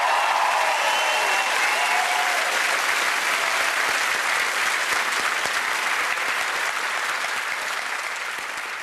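Large studio audience applauding, with a few cheers in the first couple of seconds; the applause gradually dies down toward the end.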